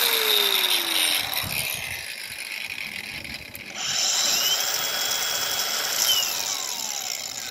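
Two angle grinders spinning with no load, one after the other. A second grinder is winding down over the first second or so. Then a Flex 24-volt brushless cordless angle grinder starts about three and a half seconds in with a quickly rising high whine, runs steadily, and begins spinning down about six seconds in.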